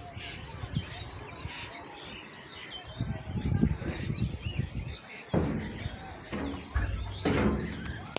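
Common mynas chirping and calling. From about three seconds in, an irregular low rumble and two sharp knocks come over the birdsong.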